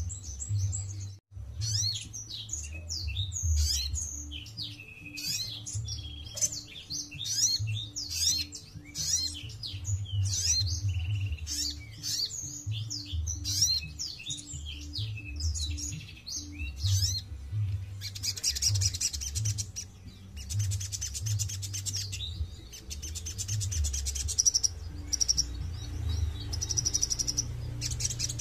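Caged male sunbird singing: a run of quick, high, falling chirp notes, then fast high trills in the last third.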